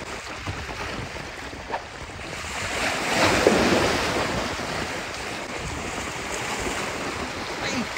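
Sea waves washing against shoreline rocks, one wave surging and breaking about three seconds in, over steady wind noise on the microphone.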